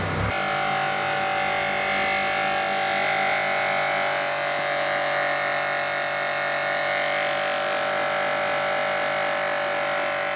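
Small electric pressure washer running, its motor giving a steady hum that begins abruptly just after the start.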